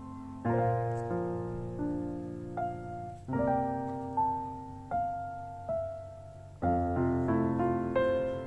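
Background piano music: chords and single notes struck about once a second, each left to ring and fade.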